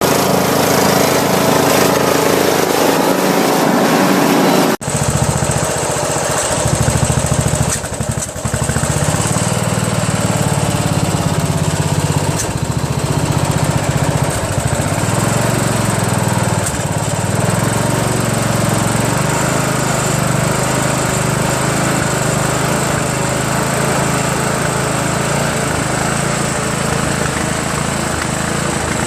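Briggs & Stratton 15.5 HP lawn tractor engine running, its speed wavering up and down, with a brief drop about eight seconds in. A different, busier sound fills the first five seconds and cuts off suddenly.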